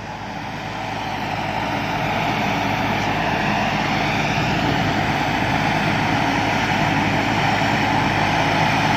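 Combine harvester's diesel engine and machinery running steadily, growing louder over the first two seconds or so and then holding.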